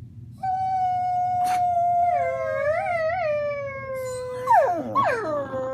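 Dogs howling: one long howl that slowly sinks in pitch, with a brief wavering near the middle, then a few quick falling howls near the end.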